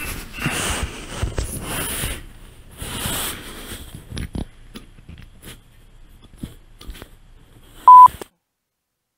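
Rustling and handling noises, then a few faint clicks, and about eight seconds in a short, very loud electronic beep on one steady tone, after which the sound cuts to dead silence.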